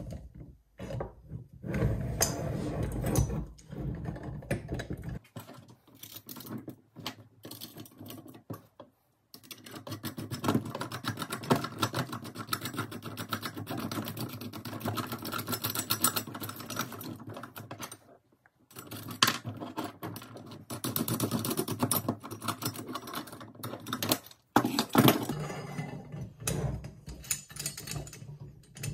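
Metal parts of a chainsaw mill handled and bolted together by hand: dense runs of clicking, clinking and rattling from steel tubes, brackets, nuts and bolts, broken by a few short pauses.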